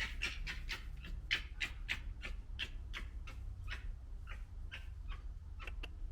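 Young red foxes gekkering: a quick run of short, harsh chattering calls, about three or four a second, spacing out and growing fainter toward the end.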